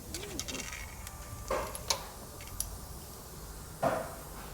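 Light metallic clicks and clinks of hand tools at work on a spark plug, with two short louder noises about a second and a half in and near the end.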